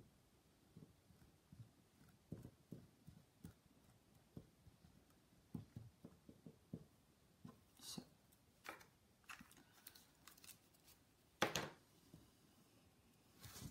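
Faint tapping and rustling of paper craft pieces being handled and pressed into place on a card, with a short, louder rustle near the end.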